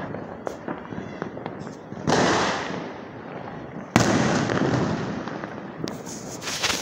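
Fireworks and firecrackers going off: a constant scatter of crackling pops, with two loud bangs about two and four seconds in, each fading away over a second or two, and a quick run of sharp cracks near the end.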